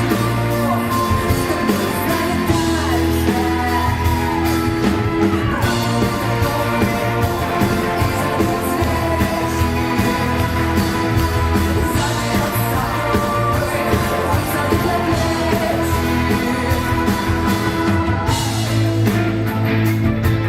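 Rock band playing a song: a sung vocal over guitars, bass and a steady drum beat.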